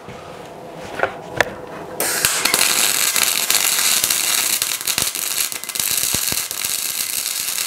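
Two light clicks, then about two seconds in a MIG welding arc strikes and crackles steadily. The PTK Rilon MIG 200 GDM inverter is welding with 1 mm wire at about 200 amps.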